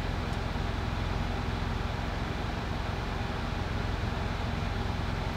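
Steady low mechanical hum with a fine, even rumble, unchanging throughout.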